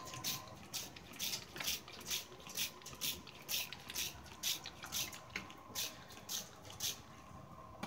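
Hand trigger spray bottle misting water, about fifteen quick squirts at roughly two a second, stopping near the end.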